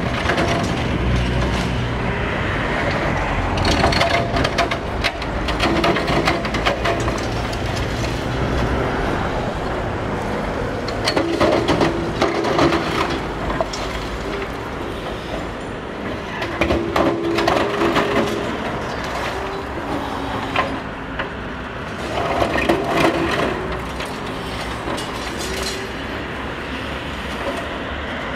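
Caterpillar hydraulic excavator demolishing a concrete building with a crusher attachment: the engine runs steadily under repeated bouts of concrete cracking and crunching and rubble falling. A few short squeals rise over the din now and then.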